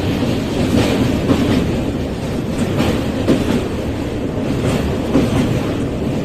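An Indian Railways passenger train crossing a steel truss bridge, heard from inside the coach: a loud, steady rumble of the carriage with the wheels clacking over rail joints every few tenths of a second.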